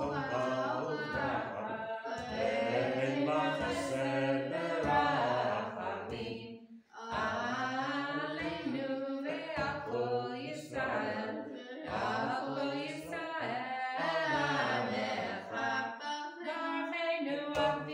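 A boy and a woman chanting a Hebrew prayer together without accompaniment, with one short pause for breath about seven seconds in.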